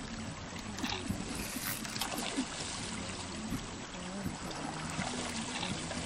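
Shallow creek running steadily over gravel, a constant rush of water.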